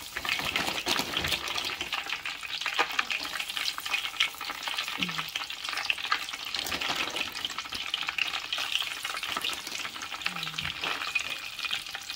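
French fries deep-frying in hot oil in a wire mesh basket: a steady, dense sizzle and crackle of bubbling oil.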